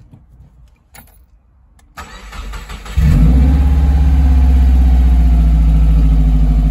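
Subaru WRX turbocharged flat-four engine, rear-mounted in a Mini, being started: the starter cranks for about a second, the engine catches about three seconds in and settles straight into a steady idle at about 1,000 rpm.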